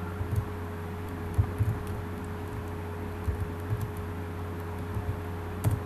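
Computer keyboard keystrokes, about nine separate clicks scattered at irregular intervals, over a steady low electrical hum.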